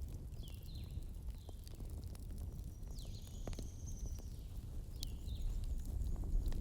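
Wood fire burning: a steady low rumble with scattered sharp crackles and pops. There are a few short high squeaks and a thin whistle about halfway through.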